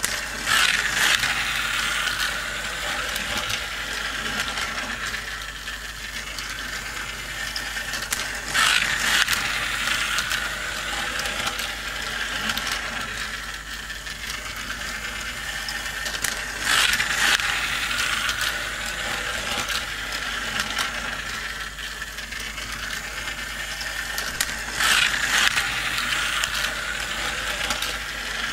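Motorized plastic toy car racing track running, its gears whirring and clicking steadily as small plastic toy cars run along the track. A louder plastic clatter comes about every eight seconds, four times in all.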